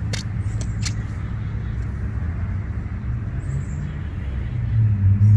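Steady low hum of a running vehicle engine, growing a little stronger near the end, with two sharp clicks within the first second.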